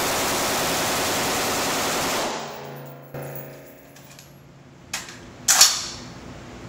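M16-style rifle firing a rapid string of shots for about two and a half seconds, echoing off the walls of an indoor range; the echo then dies away. A short, sharp noise follows about five and a half seconds in.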